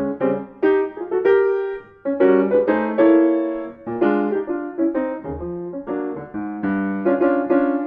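Background piano music: a tune of separately struck notes over chords.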